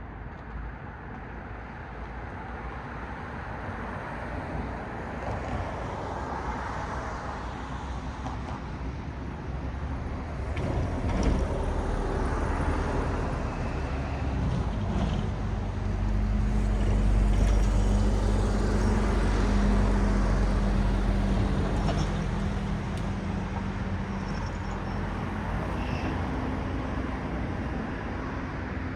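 Road traffic: cars passing with a steady hiss of tyre noise. About halfway through a heavier vehicle's engine comes in with a low rumble and a steady hum. This is the loudest part and eases off near the end.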